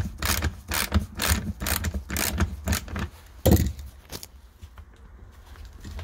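Hand ratchet wrench clicking at about four clicks a second as a floor bolt is turned out. The clicking stops about three seconds in and is followed by a single thump.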